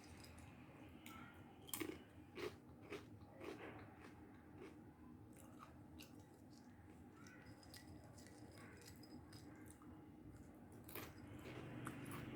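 A person biting and chewing crunchy food close to the microphone, with a few sharp crunches about two to three seconds in and another near the end.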